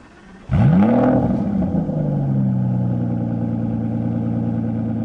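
Car engine starting, blipped once so the revs rise and fall back, then idling steadily.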